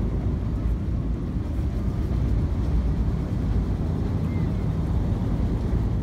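Steady low rumble of a river ferry's engine as the boat moves out across the river.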